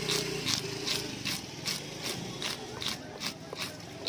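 A knife blade scraping the scales off a large fish on a wooden chopping block, in quick regular rasping strokes, about two a second.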